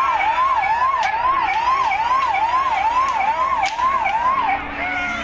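An electronic siren in a fast yelp, its pitch sweeping up and down about twice a second, then stopping about four and a half seconds in, over a noisy crowd background.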